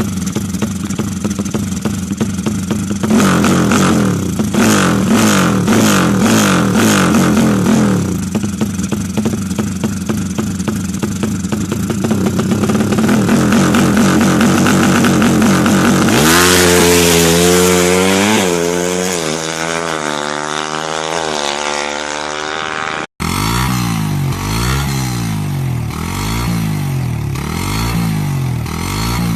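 Drag-race motorcycle engine running and being revved during tuning. It holds a fairly steady speed at first, then is blipped up and down over and over, in the last few seconds about once every second and a bit.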